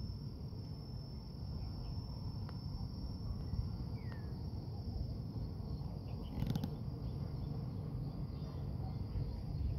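Outdoor ambience of a steady high-pitched insect trill over a low rumbling noise, with a short falling chirp about four seconds in and a brief click about six and a half seconds in.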